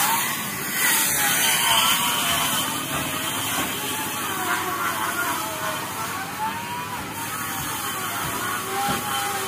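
Handheld electric circular saw ripping lengthwise through a wooden plank. Its motor whine wavers up and down as the blade loads and frees in the cut, over a steady hiss of cutting.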